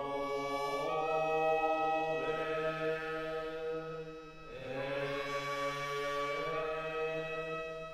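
Slow chanting with long held vocal notes over a steady low tone, pausing briefly about four and a half seconds in.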